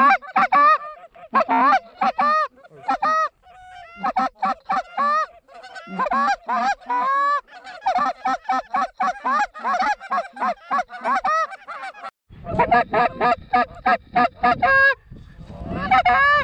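Hand-blown goose calls sounding fast, repeated clucks and honks imitating Canada geese, calling to a flock coming in to the decoys. The calling briefly pauses a few times and quickens into a dense run of clucks near the end.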